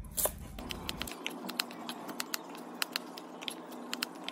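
Chef's knife chopping shallots on a plastic cutting board: quick, sharp taps of the blade striking the board, about four or five a second.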